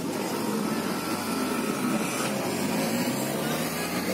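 Steady hum and rush of city street traffic, a low engine drone over a constant wash of noise.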